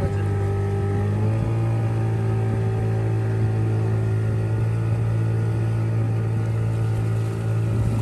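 The motor of a small passenger boat (felouka) running steadily, a low hum that rises slightly in pitch about a second in.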